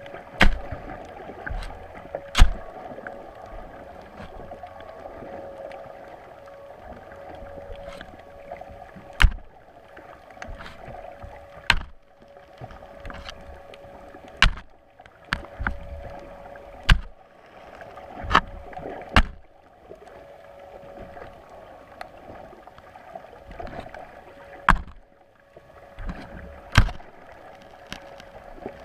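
Irregular sharp knocks on a small boat, from one every second or so to a few seconds apart, over a steady hum and light hiss.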